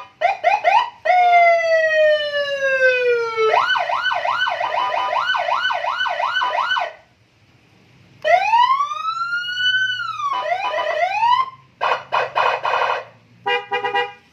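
Custom Senken police-escort siren playing through a 15-watt horn speaker, cycling through its tones. It opens with quick chirps, then a long falling sweep and a fast warble of about three cycles a second. After a pause of about a second come a rising-and-falling wail, more quick chirps and short stuttering pulses.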